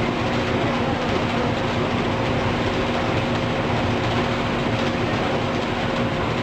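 Box-takeaway and pack-off conveyor line running: a steady mechanical clatter with a constant motor hum.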